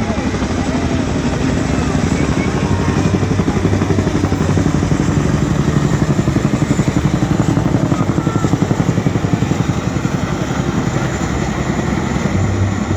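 A formation of Boeing CH-47 Chinook tandem-rotor helicopters flying past, their rotors beating in a fast, steady pulse that swells to its loudest about halfway through and eases off toward the end.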